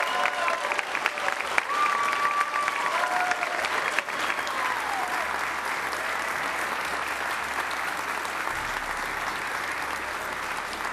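Audience applauding, with a few voices calling out in the first few seconds; the clapping slowly dies down.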